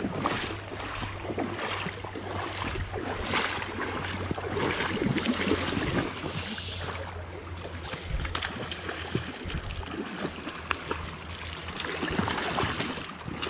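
Creek water rushing and splashing, with a low rumble of wind on the microphone.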